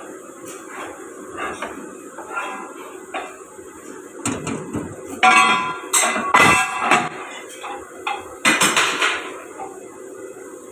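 Hard metal objects clanking and clinking together several times, the loudest strikes ringing briefly, over a steady machine hum.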